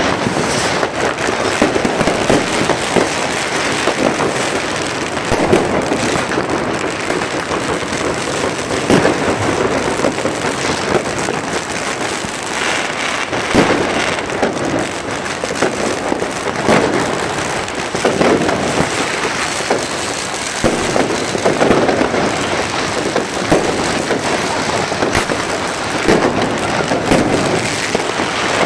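Fireworks going off all around: a continuous dense crackle of firecrackers, with frequent louder bangs and bursts from rockets and aerial shells.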